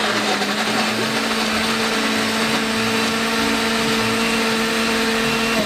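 Electric blender motor running steadily at full speed, mixing a drink, then switched off at the very end.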